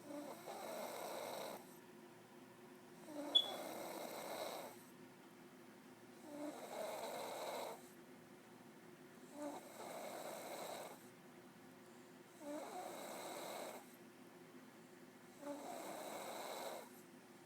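A woman snoring in deep sleep: about six snores, one every three seconds, each lasting about a second and a half. A brief sharp sound at the start of the second snore is the loudest moment.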